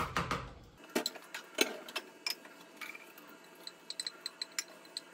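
Light, irregular clicks and taps of kitchenware as leftover food is moved from cooking pots into plastic food containers, with a quick run of small clicks just before the end.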